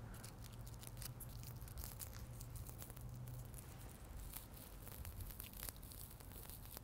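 Faint crinkling and small ticks of a pre-rolled joint's paper tip being twisted open by hand, with a pinch of ground cannabis coming out into the palm.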